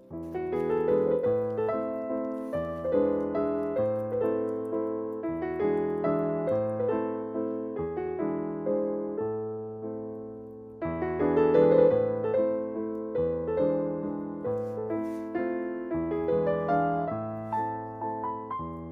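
Background piano music: a flowing melody of struck notes over a bass line, with a louder phrase starting about eleven seconds in.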